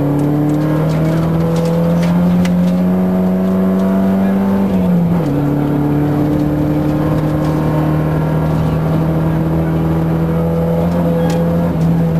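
Volvo 940 rally car's engine under hard acceleration, heard from inside the cabin on a gravel stage. Its pitch climbs slowly, then drops sharply about five seconds in as it shifts up a gear, and climbs again. Gravel hisses under the tyres and stones tick against the underbody.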